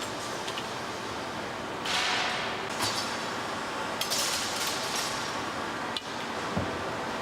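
Glass-cutting machinery working mirror glass: a steady machine hum under several hissing bursts, with light clinks and knocks of glass. A sharp click comes about six seconds in, followed by a short dull thud.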